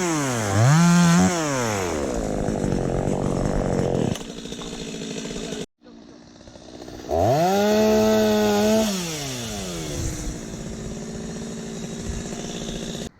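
Two-stroke chainsaw revving and idling: two quick throttle blips at the start, then idling. After a sudden break a little before the middle, it revs up once, holds high for about a second and a half, and falls back to idle.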